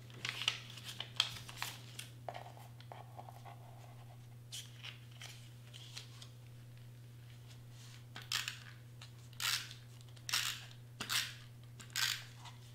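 Cardstock cutouts being shuffled, then a handheld adhesive runner pressed along the back of a paper cutout in short strokes. The strokes come about once a second near the end.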